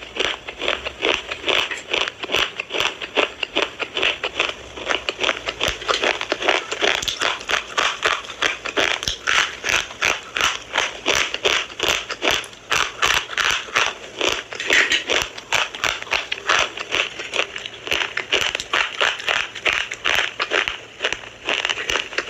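Slate pencil being bitten and chewed close to the microphone: continuous, rapid gritty crunching, several crunches a second.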